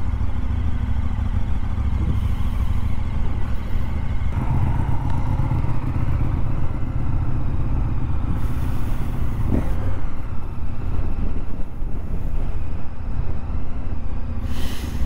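KTM Super Adventure S motorcycle under way, its V-twin engine running steadily under a heavy rumble of wind on a helmet-mounted microphone.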